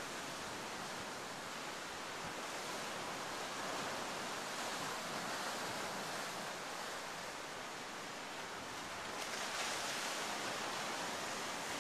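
Ocean surf breaking against a rocky lava shoreline, a steady wash of noise that swells about four seconds in and again near the end.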